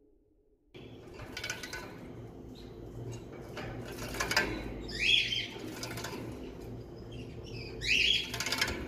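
Goldfinch bathing in a shallow plastic bird bath, splashing and fluttering its wings in the water in repeated bouts that start abruptly about a second in. Short goldfinch chirps come through about halfway and again near the end.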